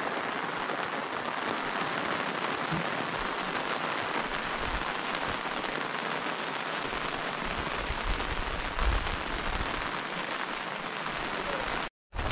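Steady rain falling, an even hiss of raindrops.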